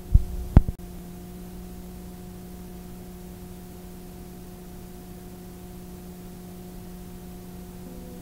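Steady electrical hum with an even hiss, the background of an analog tape transfer, after two loud pops in the first second.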